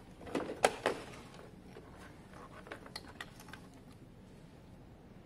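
Handling noise from a moped's plastic headlight unit and its wiring: a quick cluster of sharp knocks and clicks in the first second, then a few lighter clicks around three seconds in.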